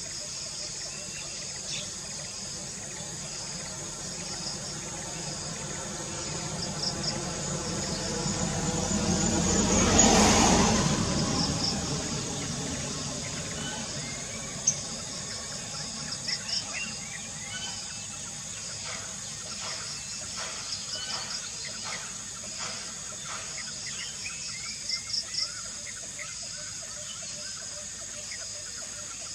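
Outdoor ambience of a steady high insect drone with repeated pulsing trills, and a vehicle passing that swells and fades, loudest about a third of the way in. In the second half, many short chirping bird calls come in quick clusters.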